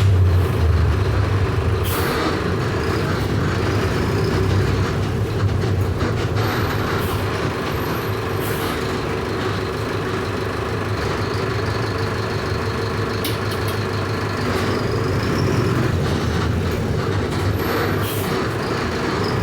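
Mercedes-Benz OF 1519 bus's four-cylinder electronic diesel engine running while the bus is driven, a steady low drone that eases slightly after the first couple of seconds and builds again near the end, with body rattles and occasional knocks.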